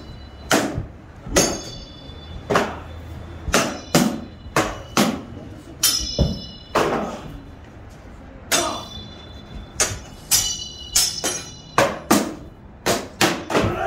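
Repeated metal-on-metal clanks, about twenty strikes at an uneven pace, several of them leaving a short high ring. There is a pause of about a second and a half in the middle.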